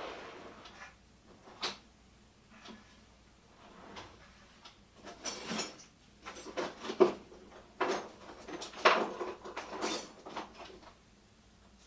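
Irregular handling noises as a multimeter's carrying bag is cleaned by hand: short scrubbing and rubbing strokes mixed with light clicks and knocks, busiest in the second half.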